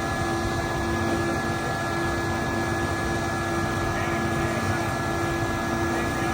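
An engine running steadily at a constant speed, an even hum with a few fixed tones over a rumble.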